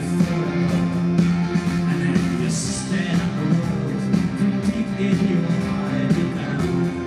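Live pop-rock band playing: amplified guitars over a steady drum beat and sustained chords, with a brief bright hiss about two and a half seconds in.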